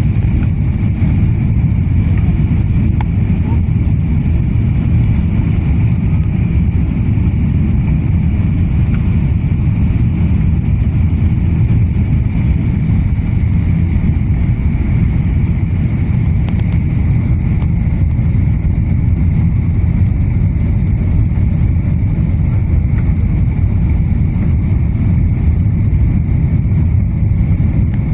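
Steady low rumble of a jet airliner heard from inside the passenger cabin on approach with the wing flaps extended, with a faint steady high whine over it.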